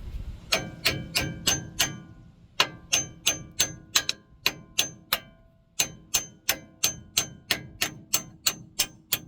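Hammer tapping the steel caliper key into its slot on a 1976 Ford F100's front disc brake: sharp ringing metal strikes, about three a second, in three runs with short pauses between them.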